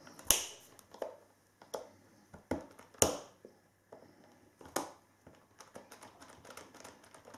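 Needle-nose pliers clicking and scraping on the bent wheel-hex pin of an RC crawler's axle shaft as the stuck pin is worked loose: irregular sharp clicks, the loudest ones about three times over several seconds.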